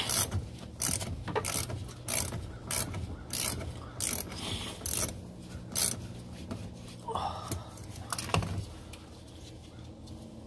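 Socket ratchet wrench clicking in short back-and-forth strokes, about two a second, as a bolt on a car battery is undone. The clicking stops a little past two-thirds of the way in, leaving a faint low hum.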